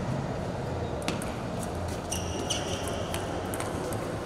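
Table tennis rally: the plastic ball clicking off the paddles and the table, one sharp click roughly every half second starting about a second in.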